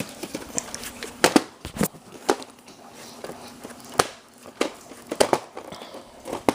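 A VHS tape and its case being handled and opened: scattered sharp plastic clicks and knocks, about eight of them, with some crinkling.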